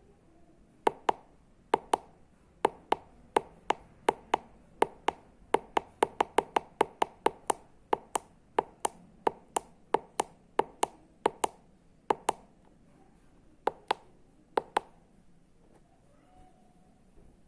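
Tactile push buttons on a breadboard being pressed again and again, a long series of sharp clicks, some in quick pairs, with a faster run of about four a second in the middle, as the clock's time or alarm is stepped through with the buttons. The clicking stops about 15 seconds in.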